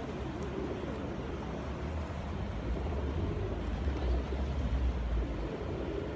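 A flock of pigeons cooing over a steady background hiss, with a low rumble that swells through the middle.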